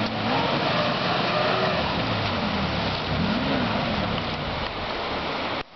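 Off-road SUV engine revving up and down as it drives off pulling on a taut tow line, over a steady rushing noise. The sound cuts off abruptly near the end.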